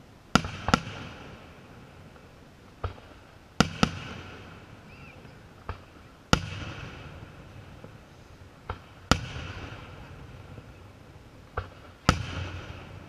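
Aerial firework shells bursting: sharp bangs every two to three seconds, each loud one trailing off in a long rolling echo, with smaller cracks in between.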